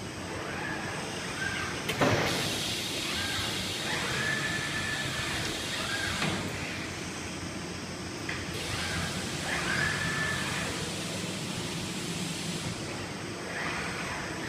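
Industrial palletizing robot arm with a suction gripper handling interior door panels: short high whines from its servo drives as it swings, recurring several times, with stretches of air hiss and one sharp clack about two seconds in, over a steady machine hum.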